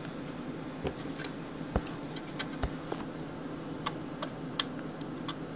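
Light clicks and taps from hands working parts inside an open Mac Pro tower, handling the graphics card's retaining parts, over a steady low hum. The clicks are scattered and irregular, with the sharpest coming a little under 2 s in and again near 4.5 s.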